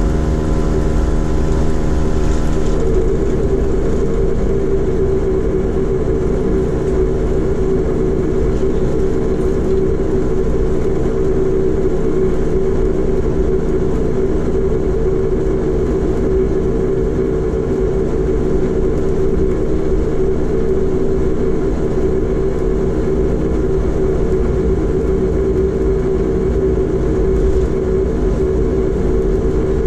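Bombardier Q400's Pratt & Whitney PW150A turboprop and propeller droning loudly and steadily, heard from inside the cabin while the aircraft taxis. About three seconds in the tone shifts: a higher whine drops away and a strong, steady hum takes over.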